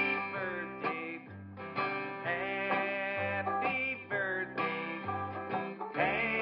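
Outro music: country-style guitar music with a steady bass line.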